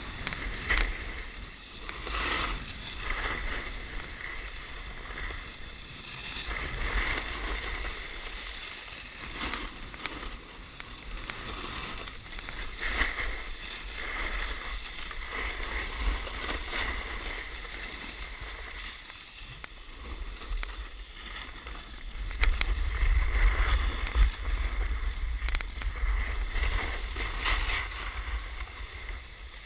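Snowboard sliding and scraping over packed snow down a run, a hiss that swells and fades with each turn, with wind rumbling on the microphone, heaviest in the last third.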